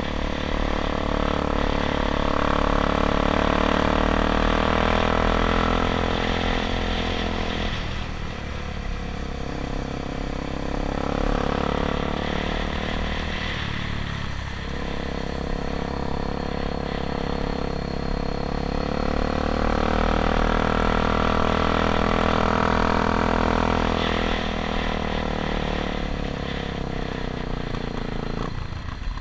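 Enduro dirt bike's engine running under way, its pitch climbing and falling several times as the throttle opens and closes.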